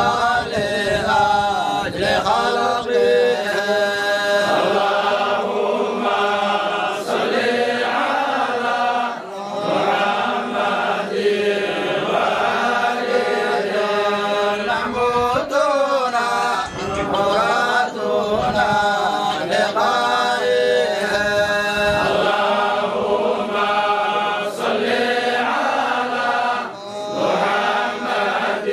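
A group of men chanting a religious song together in unison, a devotional chant of blessings on the Prophet Muhammad, unaccompanied men's voices in long continuous phrases with brief breaks for breath.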